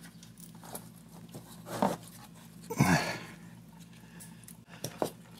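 Quiet handling noises of gloved hands working at a motorcycle's oil drain plug, with a short breathy vocal sound, like a grunt or exhale, about three seconds in and a click near the end.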